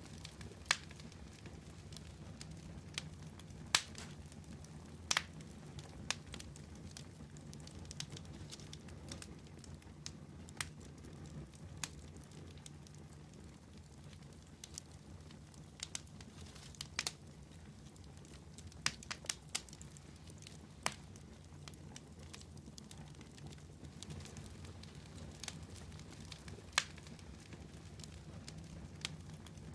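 Wood campfire burning with a soft steady rumble and irregular sharp crackles and pops from the burning wood.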